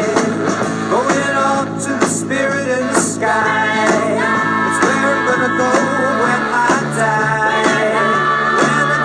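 Background pop-rock song with singing over guitar, bass and drums with a steady beat.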